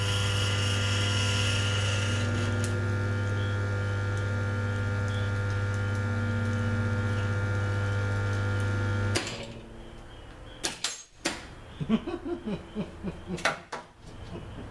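Arc-welder transformer buzzing loudly and steadily under load, its secondary shorted through a metal bracket and drawing about 25 amps on the primary side. The buzz cuts off suddenly about nine seconds in, followed by a few scattered clicks and knocks.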